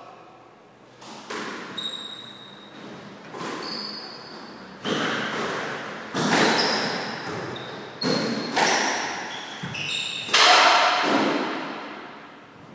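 Squash rally: the ball cracks off rackets and walls in a string of sharp hits that echo around the court, loudest about six and ten seconds in, with short high squeaks of shoes on the wooden floor in between.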